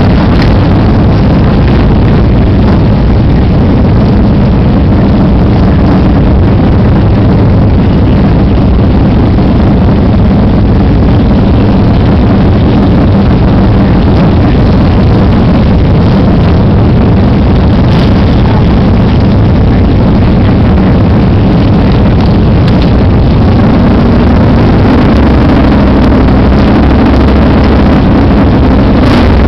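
Buell motorcycle engine running loud and steady at low street speed, a continuous low drone, its note lifting slightly a little before the end.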